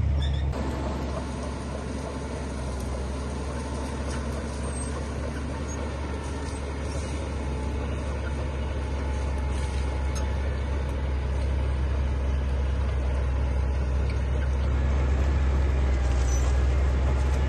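Heavy construction machine's diesel engine running steadily, a low drone with mechanical noise over it. It eases off slightly about two seconds in, then slowly builds again.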